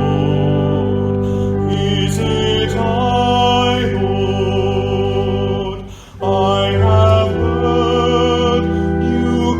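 Slow worship music of long held chords with a wavering melody line over them; it breaks off briefly about six seconds in, then goes on.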